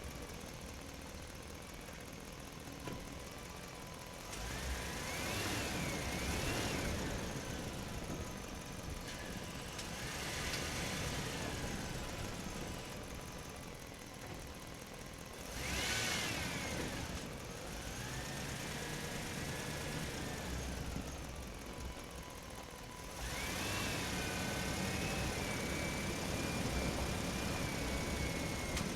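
Excavator's diesel engine running, rising in several louder surges as it works, each surge carrying a whine that rises and falls in pitch.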